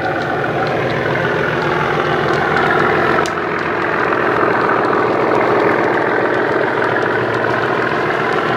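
Class 37 diesel engine sound from a DCC sound decoder (Legomanbiffo's 'Spa Valley' sound file) playing through an EM2 speaker in a Vi-Trains model locomotive, running steadily as the loco passes with its train. There is a single sharp click about three seconds in.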